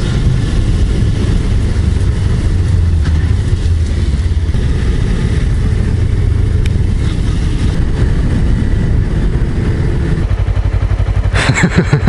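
Suzuki GSR250's parallel-twin engine running as the motorcycle is ridden, heard from on board with wind noise over it. A little past ten seconds in it drops to a slow, even throb of separate firing pulses as the bike slows.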